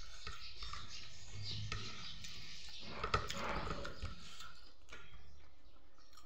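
Person eating rice by hand: soft clicks of fingers working the rice on a plate, then a cluster of wet mouth clicks and chewing about three seconds in as a handful goes into the mouth.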